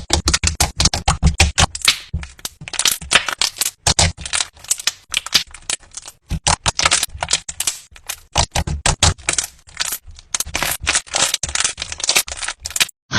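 Slime being worked, giving a dense, irregular run of sharp wet clicks and crackling pops, with brief pauses between handfuls.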